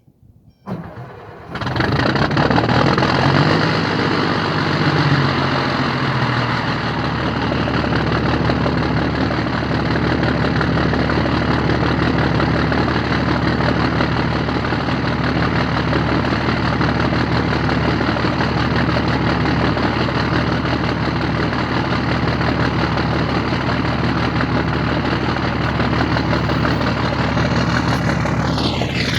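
International DT466E diesel in a 2005 IC CE school bus cranking briefly and catching on a cold start about a second in. It then runs at a raised idle that settles within a few seconds into a steady idle, loud through the muffler-deleted exhaust.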